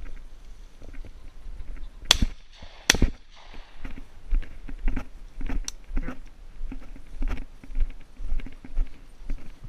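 Two shotgun shots about a second apart, sharp cracks with a short echo after the second, the first about two seconds in. Around them, footsteps swish steadily through dry grass.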